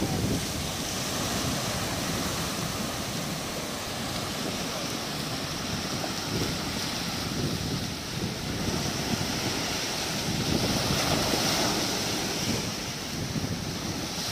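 Surf breaking and washing onto a shallow beach, with wind buffeting the microphone. The rush swells to its loudest a little past the middle, then eases.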